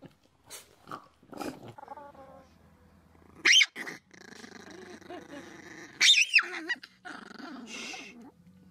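Chihuahua growling steadily, broken by two sudden, loud, sharp outbursts, one about three and a half seconds in and one about six seconds in.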